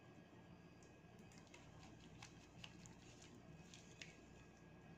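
Near silence, with a few faint, soft taps and clicks as thick rice kheer is scooped with a silicone spatula into a glass serving bowl.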